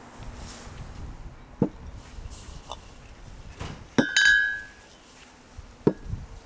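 Full glass mineral-water bottles set down on a table one after another: three knocks, the second, about four seconds in, ringing briefly with a glassy clink.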